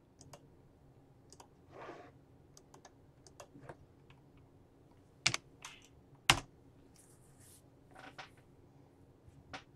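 Computer keyboard keys being pressed: scattered, irregular clicks, with two much louder key strikes about a second apart near the middle.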